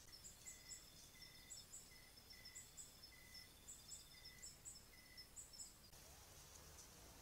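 Faint chirping of night insects, several callers overlapping: short high chirps in pairs, lower short notes about twice a second, and a fast trill. The chirping stops abruptly about six seconds in.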